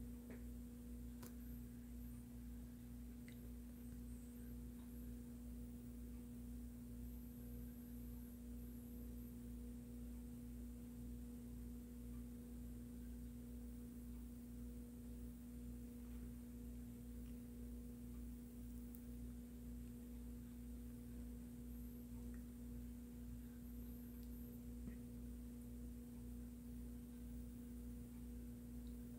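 A faint, steady hum with a constant pitched tone that never changes.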